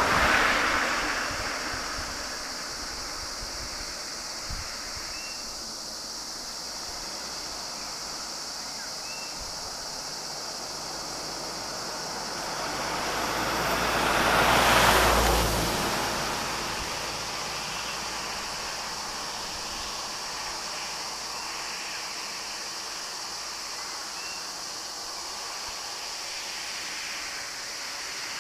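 Steady roadside ambience with a vehicle driving past: its tyre and engine noise swells about halfway through, peaks and fades over a few seconds. A few faint short chirps sound in the background.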